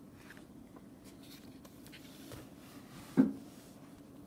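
A paperback picture book's page being turned by hand: soft paper rustling, with one short thump about three seconds in as the page is laid flat.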